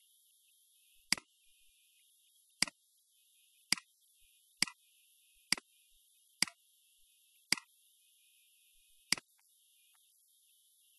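Computer mouse button clicking eight times, sharp single clicks spaced unevenly about a second apart, over a faint high hiss.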